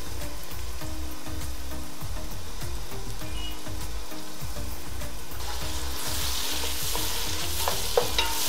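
Sliced onions and green chillies sizzling in hot oil in an aluminium pot. The sizzle grows louder about five seconds in, and near the end a wooden spoon stirs the onions, knocking a few times against the pot.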